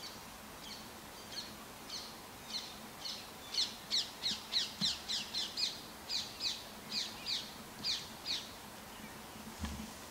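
A bird calling a long series of short, sharp, downward-slurred notes, about three a second, growing louder towards the middle and then thinning out. A faint low thump comes near the end.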